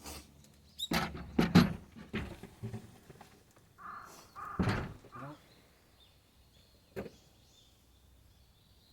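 A few sharp knocks and clatters of rebar and forms being handled, the loudest about a second and a half in, followed by a single sharp click at about seven seconds.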